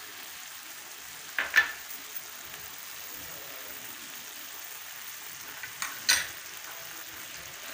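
Steel spoon clinking and scraping as it scoops solid desi ghee out of a plastic tub and drops it onto carrot halwa in a kadhai: a few sharp clinks about a second and a half in and again near six seconds in. Beneath them is a steady faint sizzle from the halwa cooking on a low flame.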